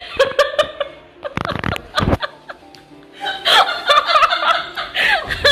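Background music with people laughing, the laughter growing louder in the second half.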